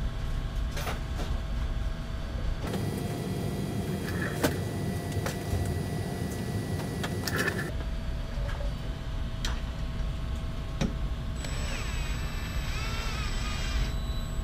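Cordless drill with a socket running in bursts, driving the lock nuts onto the bed frame's wheel bolts. It runs for about five seconds starting about three seconds in, and again near the end with its pitch wavering.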